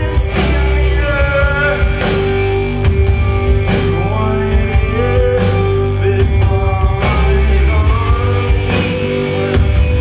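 Live rock band playing: electric guitars, bass guitar and drums, with a man singing over them in short phrases. The bass is loud and steady, and drum hits cut through the music.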